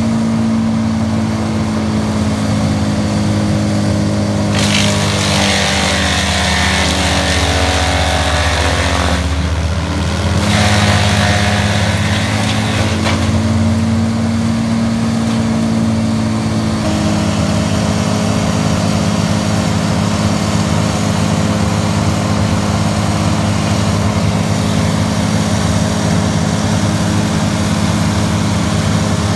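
Tree chipper's engine running steadily at working speed. About five seconds in, branches are fed through and shredded for several seconds with a loud grinding, the engine note sagging under the load, then a second, shorter bout of chipping just after ten seconds.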